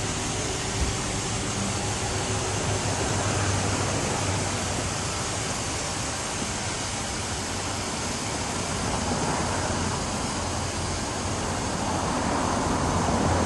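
Truck engine idling steadily under an even hiss.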